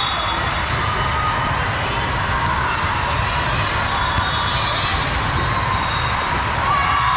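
Indoor volleyball play in a gym hall: shoes squeak on the court floor and a few sharp knocks of the ball are heard over the steady din of the hall.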